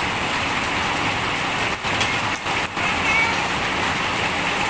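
Steady rain falling, an even hiss that cuts out briefly a few times near the middle. A short faint chirp about three seconds in.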